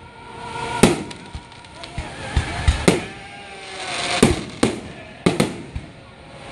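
Aerial fireworks display: shells bursting in a string of sharp bangs, about six, spaced under a second to two seconds apart, with hissing and crackling swelling between them.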